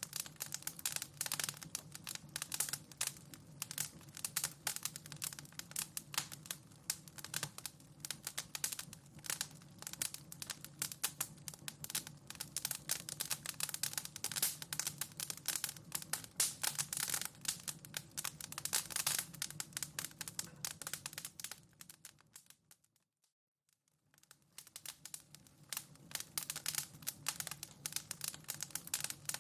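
Wood fire crackling with dense, irregular pops and snaps over a low steady rumble. About three-quarters of the way through it fades out to near silence for a second or so and fades back in, where the recording loops.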